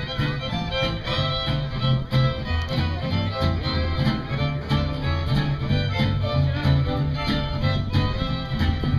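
Live band music led by a fiddle, with guitar and bass, playing an upbeat country-style tune over a steady beat.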